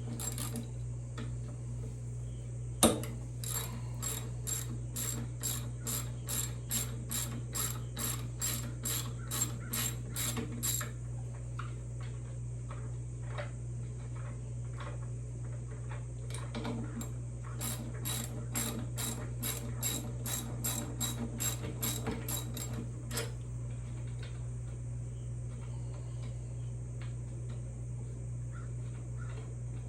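Ratchet clicking in two runs of about three clicks a second as the 12-point metric bolts holding a Harley-Davidson brake caliper are turned out, with a sharp click just before the first run.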